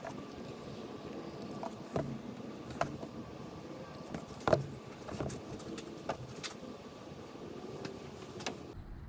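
Motor oil pouring from a plastic jug through a funnel into the engine, a steady low rush with several light plastic knocks and clicks from the jug. Near the end the sound changes abruptly to a duller low rumble.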